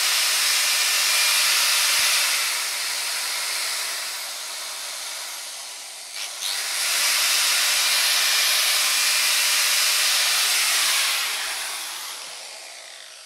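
Bosch GWS 17-125 CIE angle grinder running unloaded on a test run after repair (burnt stator replaced, new brushes fitted). It runs up, eases off around the middle, runs up to full speed again, and winds down near the end.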